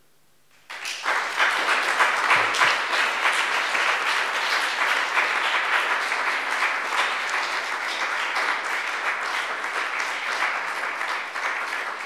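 Audience applauding, starting suddenly about a second in and slowly tapering off.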